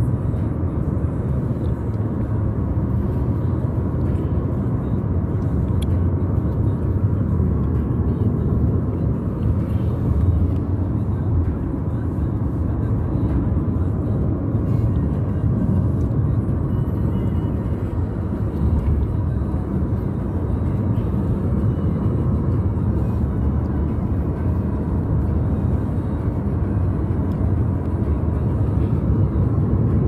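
Steady low rumble of road and tyre noise heard inside the cabin of a moving Honda car.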